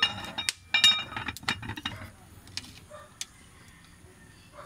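Metal lid set back on a cooking pot: two ringing clinks in the first second, then a few lighter clicks and taps that thin out.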